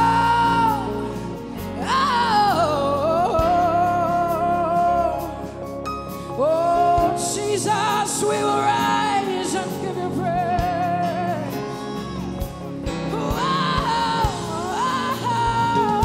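Live gospel worship song: a woman sings lead into a microphone over a band, holding long, wavering "oh oh oh oh" lines.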